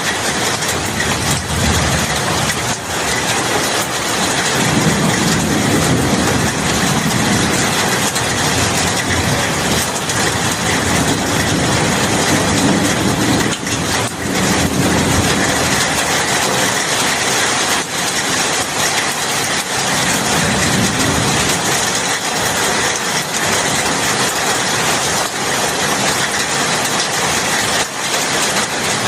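Steady heavy rain falling, a dense even hiss, with a low rumble that swells and fades a few times.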